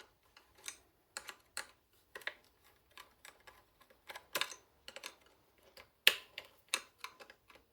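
Screwdriver working a tight screw loose on a vacuum cleaner's wiring: a string of irregular small clicks and taps, the sharpest about six seconds in.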